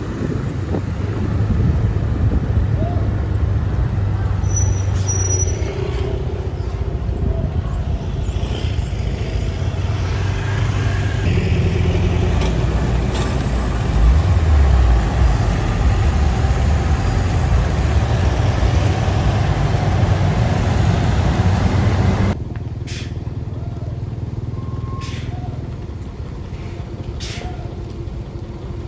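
Heavy diesel engine running loudly and steadily. About three-quarters of the way through the sound drops suddenly to a quieter engine hum, with a few sharp clicks after the drop.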